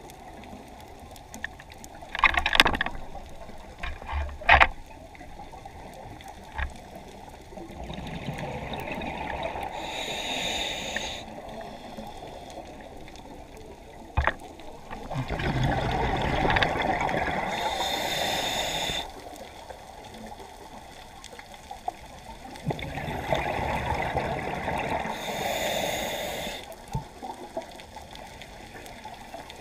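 A scuba diver breathing through a regulator underwater, heard through a GoPro's waterproof housing: a short hissing inhalation, then a long bubbling exhalation, about one breath every seven or eight seconds. A few sharp clicks sound in the first five seconds and once about halfway.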